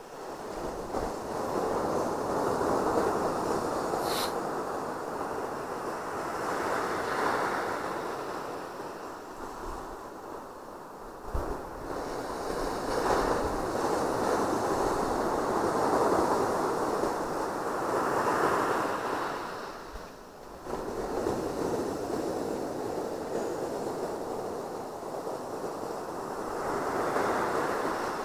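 Atlantic Ocean surf breaking and washing up the beach, swelling and fading every few seconds.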